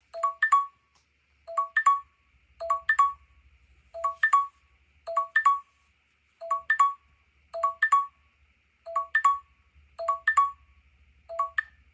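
Samsung Galaxy S8 timer alarm ringing: a short chime figure of three or four quick notes, low then higher, repeating about once a second, ten times in all, signalling that the countdown timer has run out.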